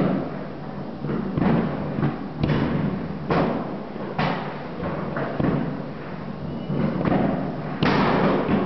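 New Year's fireworks and firecrackers going off across the city: a string of booms and sharp bangs about once a second, each echoing off the buildings, over a constant rumble of more distant blasts. The loudest bang comes near the end.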